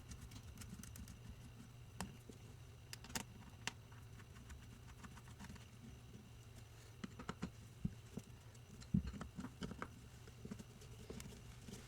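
Faint scattered clicks and taps of hand tools and small metal parts as a motorcycle carburetor is put back together, its screws tightened one by one, over a low steady hum.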